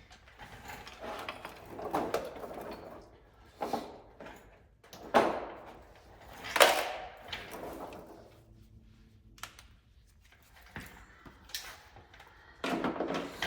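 A handful of separate scraping, sliding handling sounds a second or two apart, with quieter gaps between: parts being handled and fitted during a fender rock guard install.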